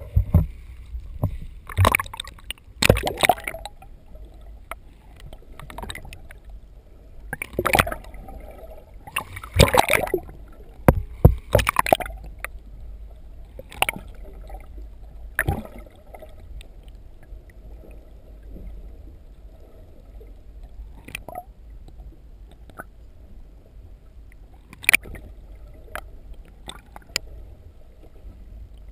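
Muffled underwater noise picked up by a waterproof action camera held below the surface on a pole: a steady low rumble of moving water, broken by a splash as it goes in and by sharp knocks and clunks, several in the first twelve seconds and a few spaced out after.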